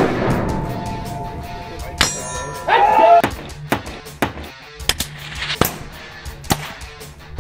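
A loud metallic clang at the start that rings on and dies away over about two seconds, and a second ringing clang about two seconds in, over background music with a steady beat.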